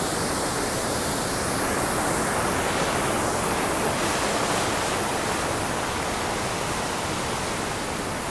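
Steady rush of Dismal Falls, water pouring over the waterfall.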